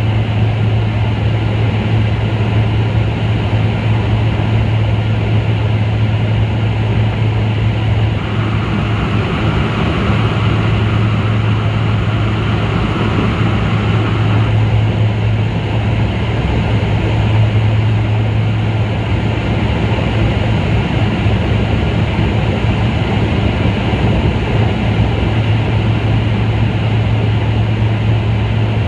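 Steady drone of a sightseeing aircraft heard from inside the cabin: a strong low hum over loud rushing noise. A higher hum joins for about six seconds in the middle.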